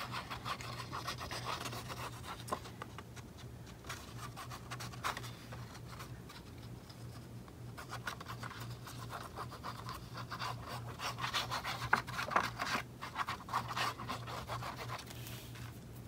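Plastic tip of an Elmer's glue bottle rubbing and scratching across paper as white glue is spread over it, busiest at the start and again from about nine to fifteen seconds in.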